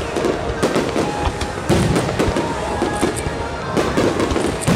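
Aerial firework shells bursting one after another, making repeated sharp bangs and crackling.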